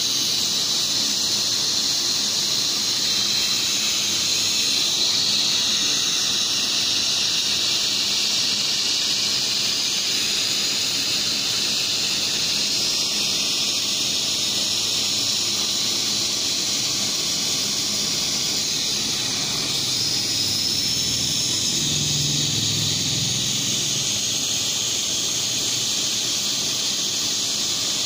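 Hot-air plastic welding gun blowing a steady high hiss of hot air through its speed-welding nozzle while welding polypropylene filler rod.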